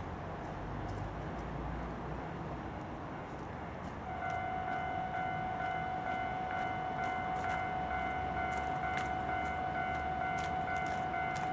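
JR Hokkaido KiHa 40 diesel railcar approaching on the Sekihoku Line. About four seconds in, a steady high tone sets in and holds, with light clicks over it.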